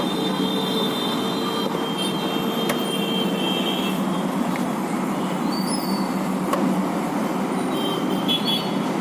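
Steady road traffic noise with vehicle horns tooting now and then, longest in the first few seconds.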